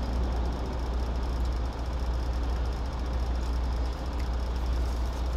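Semi-truck's diesel engine idling, a steady low rumble heard inside the cab.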